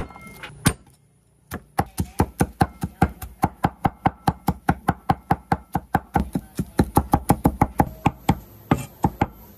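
Wide cleaver with a hammered blade chopping garlic cloves on a round wooden chopping block: two single knocks, then after a short pause a fast, steady run of chops, about five a second, ending in a few last strikes.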